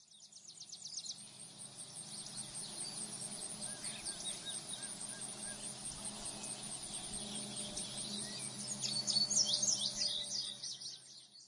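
Several birds chirping and twittering over a steady background, fading in at the start; the chirps grow thicker and louder near the end.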